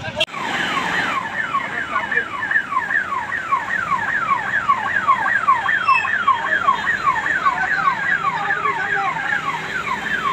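Electronic alarm siren sounding a fast, repeated falling wail, about four sweeps a second.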